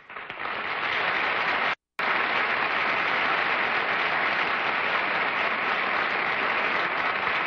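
Studio audience applauding, swelling over the first second and then holding steady, with a brief break in the sound about two seconds in.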